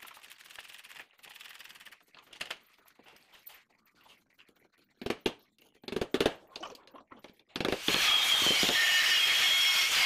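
Door lock handle being worked on: a few sharp metal clicks and knocks about halfway through, then a loud steady noise with a thin steady tone in it for the last few seconds.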